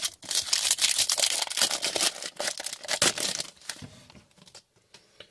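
Plastic or foil wrapping crinkling and tearing as it is handled, typical of a trading-card pack being opened. The dense crackling lasts about three and a half seconds, then dies away to faint handling.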